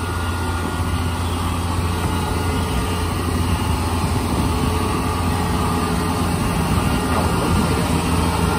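Diesel engine of a tracked rice combine harvester running steadily with a deep, even hum as the machine crawls over a makeshift bridge.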